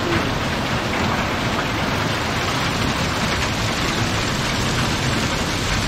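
Heavy thunderstorm rain coming down on a gravel lot, a steady, dense hiss.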